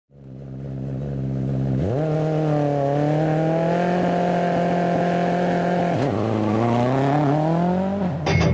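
World Rally Car's turbocharged four-cylinder engine revving, fading in from silence: it holds a low steady note, rises and holds higher revs, dips briefly, then climbs again before a sudden cut near the end.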